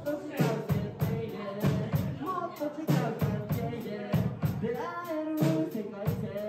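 A live pop-rock cover: a male vocalist sings into a microphone over a Tama drum kit playing a steady beat.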